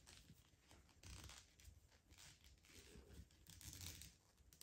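Faint rustling and scraping of T-shirt yarn being pulled through loops with a large plastic crochet hook, in a few soft swishes.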